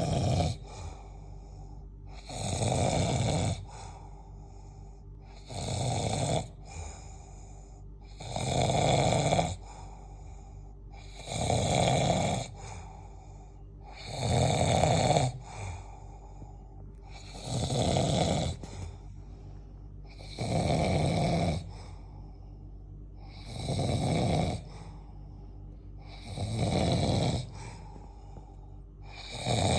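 A sleeper snoring in a slow, even rhythm: a loud snore about a second long every three seconds, with quieter breathing between.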